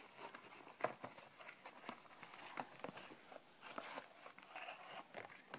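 Faint rustling, scraping and small clicks of a cardboard toy box being handled and its flap opened.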